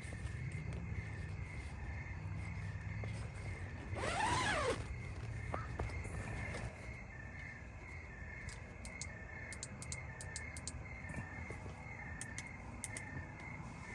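Outdoor ambience of steady, rhythmic animal chirping, typical of insects or frogs. A short call with rising and falling pitch sounds about four seconds in and is the loudest moment.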